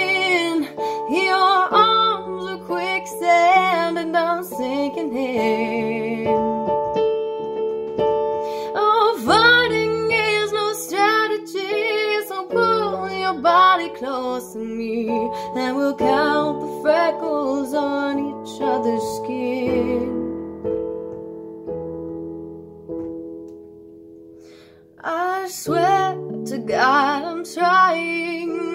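A woman singing a slow song, accompanied by piano chords. About twenty seconds in the voice stops and the piano dies away into a brief quiet lull, then voice and piano come back in together a few seconds before the end.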